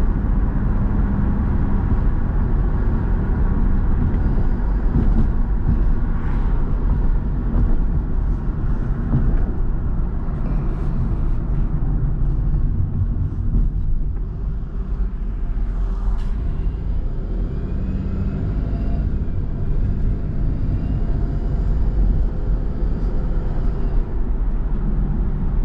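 1997 Pontiac Firebird driving under way, its engine running steadily with road and wind noise, on a freshly rebuilt transmission that is slow to shift up into third gear. The level dips briefly about halfway through.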